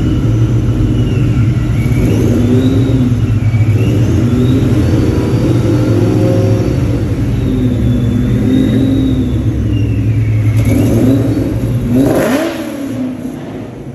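A Mustang's engine running and being revved in repeated rises and falls. About twelve seconds in, a sharp rev comes, and then the engine sound drops away.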